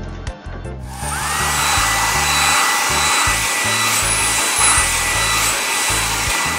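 Cartoon car-wash machine sound effect: a blower-like hiss that starts about a second in, with a whine that rises and then holds steady, over background music with a bass line.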